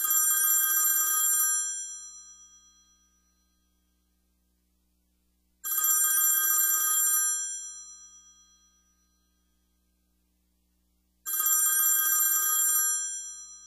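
Telephone bell ringing three times, about five and a half seconds apart. Each ring is a rattling bell trill of about a second and a half that then dies away.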